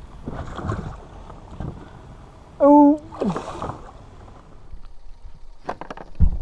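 A hooked largemouth bass splashing at the surface beside a small plastic boat as it is landed by hand, with two sharp knocks near the end.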